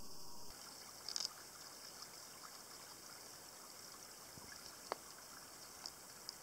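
Faint steady trickle of shallow seepage water running along a small channel, with a faint click now and then.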